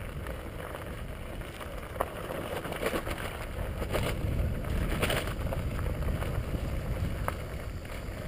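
Bicycle rolling over a rough, rocky dirt trail: a steady rumble of wind on the microphone and tyre and frame noise, broken by several sharp knocks and rattles as the bike jolts over bumps.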